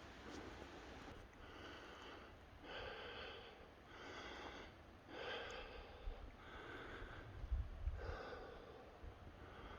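A hiker breathing hard and rhythmically while climbing a trail uphill, about one breath a second, faint and close to the microphone.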